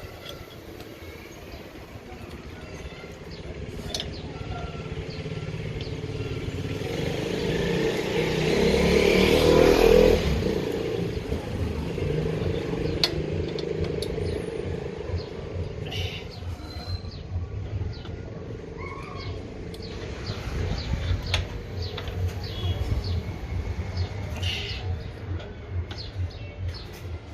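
A motor vehicle passing, growing louder to a peak about ten seconds in and then fading, over a low steady rumble, with scattered short knocks and bird chirps.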